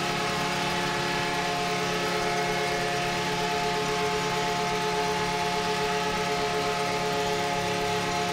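Arena goal horn sounding one long, steady multi-tone blast over a cheering crowd, the signal of a home-team goal.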